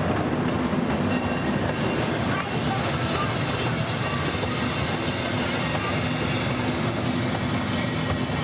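Casey Jr. Circus Train, a small amusement-park train, running along its track: a steady rumble with wheels clattering on the rails.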